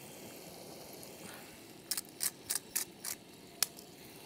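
Hand pepper mill grinding over a bowl of tomato salad: about six short rasping strokes in quick succession.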